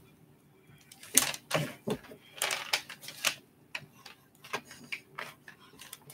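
One-handed quick-release bar clamp being tightened: a run of irregular clicks as the trigger handle is squeezed and the jaw ratchets along the bar, starting about a second in.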